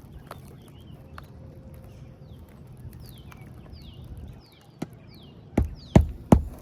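Repeated short falling bird chirps, then near the end a hammer starts driving a roofing nail into a shingle: sharp strikes in quick, even succession, about two to three a second.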